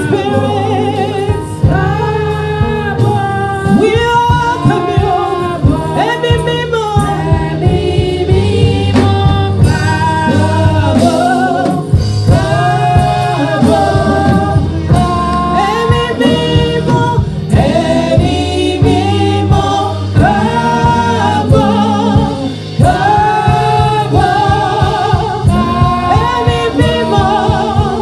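Gospel praise-and-worship singing: a woman lead singer on a microphone with a group of women backing singers, over instrumental backing with a steady beat.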